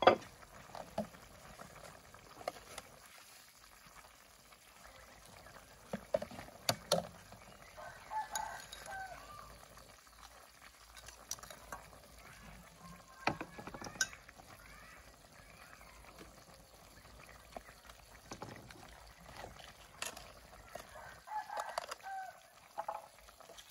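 Chickens clucking in the background, with short crowing calls about a third of the way in and again near the end. Several sharp clicks and knocks of utensils and jars, the loudest right at the start.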